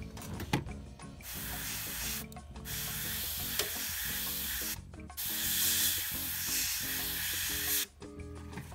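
Gravity-feed airbrush spraying paint in three bursts of a few seconds each, a steady hiss of air that stops briefly between them. Background music plays underneath.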